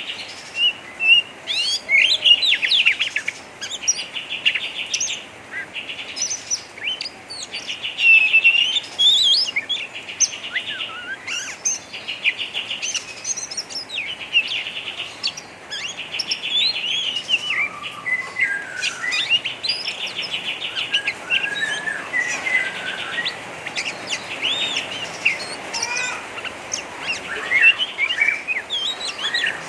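Oriental magpie-robin singing a harsh, rapid chattering song (ngeriwik): fast rattling trills alternate with short whistled notes that sweep up and down.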